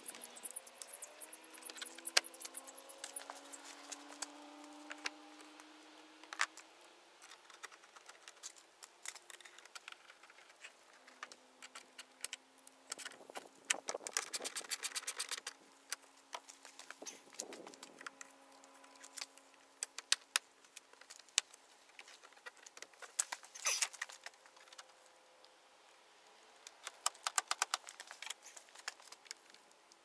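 Hand work on a pickup's door panel: scattered clicks and small rattles of plastic trim and hardware being fitted, with a few runs of rapid ratchet clicking as the panel bolts are driven in, the longest about halfway through.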